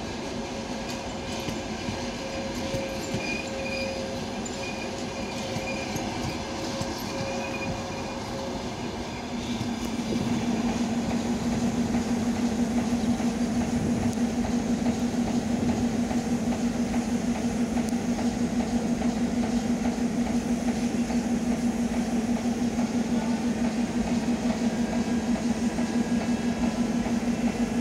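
Long passenger train of sleeper coaches rolling past on the rails, with a steady rumble and the clatter of wheels over the track. Thin squealing tones sound over the first nine seconds or so; about ten seconds in, a louder steady hum with a fast, even pulse comes in and holds.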